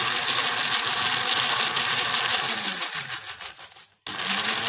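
Electric countertop blender running, whizzing a watery mix of mint leaves and spices. About three seconds in its motor winds down to a stop, then just after four seconds it is switched on again and spins back up.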